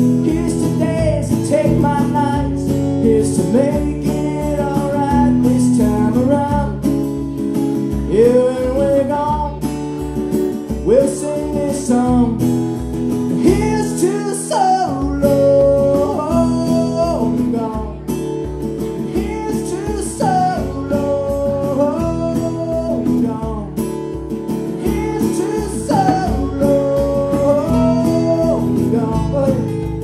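Acoustic guitar strummed steadily, with a man singing long held and bending notes over it: a live solo performance of a slow song.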